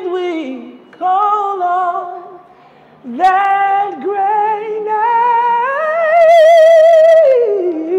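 A man singing a worship song a cappella in a high voice, holding drawn-out notes without clear words. After two shorter phrases, a long phrase climbs step by step to a high note held with vibrato, then slides back down near the end.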